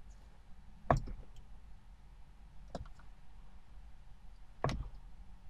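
Three sharp clicks of a Saab 9-5 steering-wheel horn button being pressed: the first about a second in, another near three seconds and the last near the end. The horn itself stays silent because its relay has been pulled.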